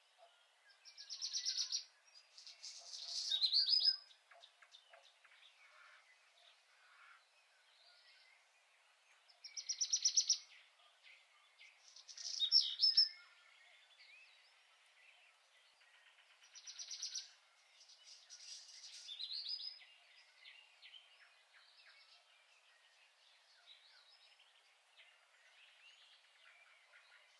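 A songbird singing: three songs about eight seconds apart, each a fast high trill followed by a louder run of quick chirps, with fainter chirps between.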